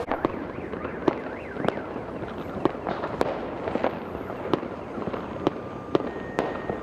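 New Year's fireworks going off: sharp bangs at irregular intervals, roughly one or two a second, over a continuous crackling background of many more distant explosions.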